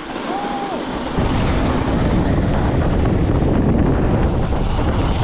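Wind blasting the microphone of a chest-mounted camera as a mountain bike speeds down a snow piste, a steady loud rush that jumps up about a second in.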